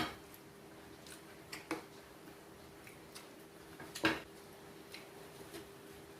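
Close-up eating sounds of a person chewing food: scattered wet mouth clicks and smacks, loudest right at the start and about four seconds in, over a faint steady hum.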